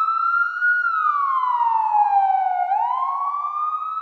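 A siren wail sound effect: a single clean tone with overtones that climbs to a peak about a second in, slides slowly down for about two seconds, then sweeps up again.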